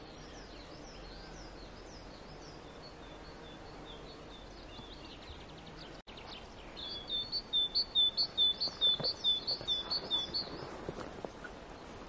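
Songbirds singing over a steady outdoor hiss: soft high chirping notes and a quick falling trill in the first half, then, after a sudden cut, one bird loudly repeating a two-note phrase about a dozen times over three and a half seconds.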